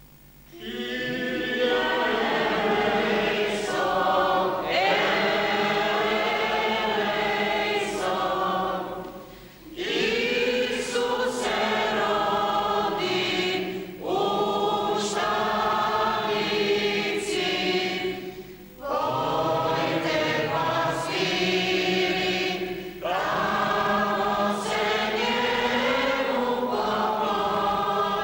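Church congregation singing together, men's and women's voices, in phrases of a few seconds with brief breaks for breath between them.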